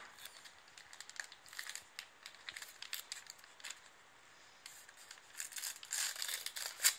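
Gift wrapping paper crinkling and tearing as small hands pull it open: irregular rustles that grow busier and louder in the last couple of seconds.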